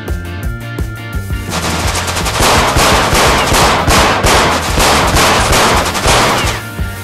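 Rapid machine-gun fire sound effects, densest from about a second and a half in until near the end, laid over background music with a steady bass line.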